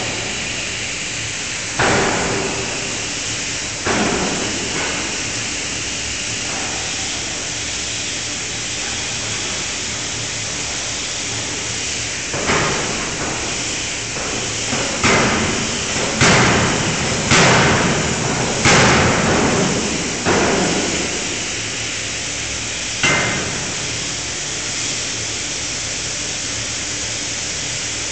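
A 5-ton fully hydraulic closed-die forging hammer striking hot metal in its dies: about nine heavy blows, a couple near the start, then a run of quicker strikes roughly every second or so in the middle, and one last blow near the end, each ringing briefly. Under the blows runs a steady loud hissing rush of shop noise.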